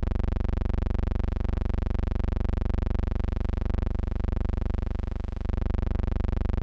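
Steady electrical hum-buzz with many overtones and a fast flutter, briefly dipping about five seconds in: noise on the soundtrack of a digitized silent film rather than any sound from the scene.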